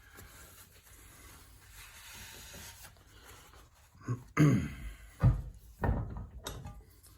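Faint rustling, then several knocks and thumps from handling objects, bunched between about four and six and a half seconds in.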